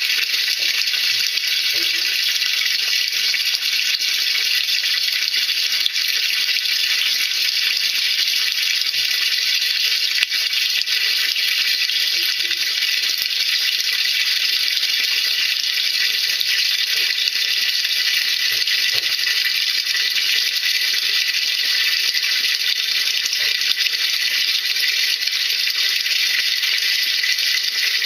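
Steady watery hiss from a washing machine tub during a sodium-percarbonate drum clean, even and unbroken throughout.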